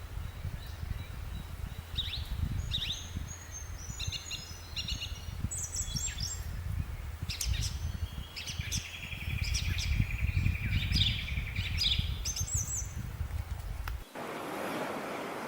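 Wild birds chirping and calling over one another in short whistles and chirps, with one bird giving a long, even trill in the middle, over a low wind rumble. Near the end the rumble cuts off and a steady hiss takes over, with a few more chirps.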